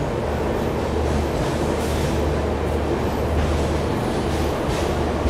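Railway train running on the track: a steady rumble with a constant low hum underneath.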